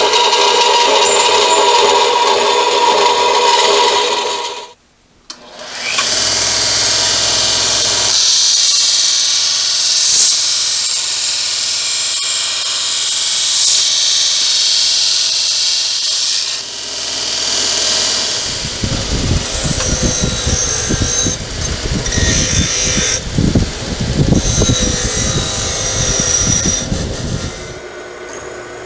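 Metal-shop power tools in turn: a bandsaw cutting a flat metal bar, then, after a short break, a belt grinder grinding a steel piece, followed by a rougher, uneven stretch of machining noise. Near the end the level drops to a drill press running as it drills an aluminium bar.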